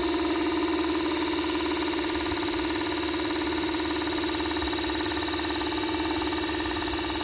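Small electric knife-sharpening grinder running at constant speed, a steady whine that holds the same pitch throughout.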